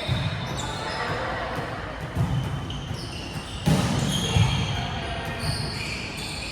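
Indoor volleyball play: thuds of the ball being hit and bouncing, with short high-pitched squeaks scattered throughout.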